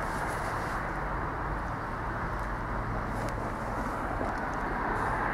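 High Speed Train (InterCity 125) passing through, a steady noise of the train running with no rise or fall.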